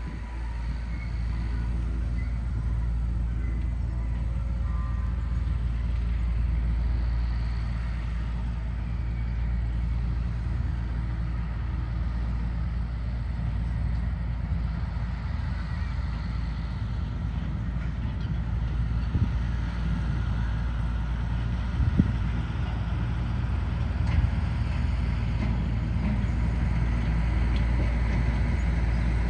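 A small train's diesel locomotive running steadily as it rolls past, a low rumble, with a few sharp knocks, the loudest about two-thirds of the way through.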